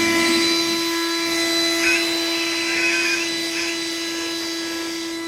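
Leaf blower running at a steady whine with a rushing hiss of air, blowing crop debris off the combine's engine compartment.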